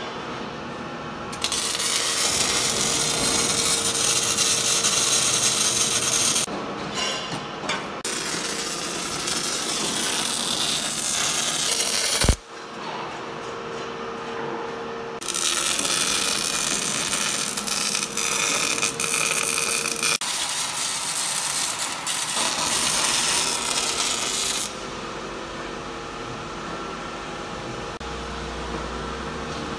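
MIG welding on steel: the arc crackles and hisses in three long runs of several seconds each, with a steady machine hum underneath. Between the runs and near the end there is only the quieter hum of the workshop.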